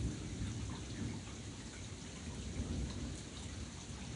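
Steady rain falling in a thunderstorm, with the low rumble of distant thunder underneath.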